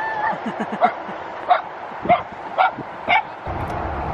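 A dog barking repeatedly, about five short barks roughly half a second apart, after a brief gliding whine at the start.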